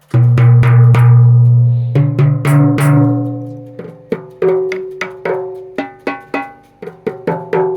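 Timbales and bongos struck one by one in a tone check, each stroke ringing on with a clear pitch. A long ring over the first few seconds, then single strokes at roughly two or three a second.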